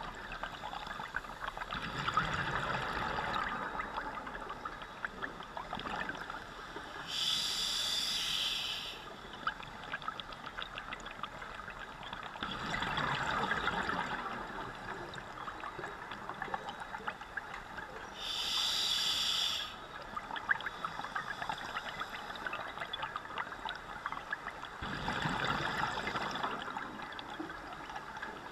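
Scuba diver breathing underwater through a regulator: slow breaths, a hiss through the demand valve on each inhale and a gurgling rush of exhaled bubbles on each exhale, with faint bubble crackle between breaths. Three exhales (about 2 s, 13 s and 25 s in) and two inhales (about 7 s and 18 s in).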